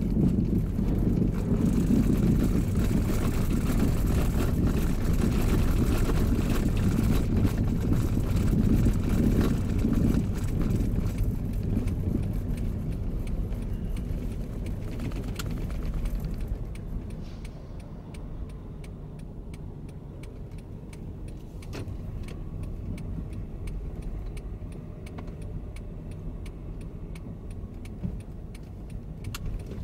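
Car interior noise while driving slowly off a ferry down a steel ramp: a heavy low rumble of tyres on the ramp, which drops to a quieter engine and road hum on flat pavement about halfway through. Light rattling clicks run throughout.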